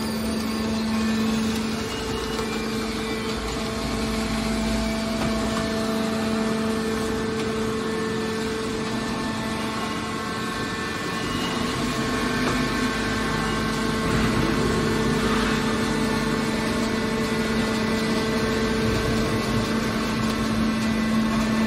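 Hydraulic scrap metal baler's power unit running steadily: a constant machine hum with a held low tone.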